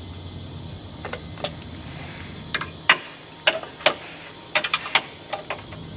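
Irregular sharp metallic clicks and taps of hand tools working on bolts and pipe fittings, a few at first and then coming more often, over a low hum that fades out about halfway through.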